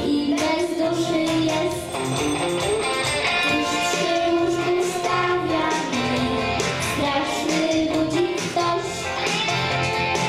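A boy singing into a microphone over a pop backing track led by guitar, both played through the hall's speakers.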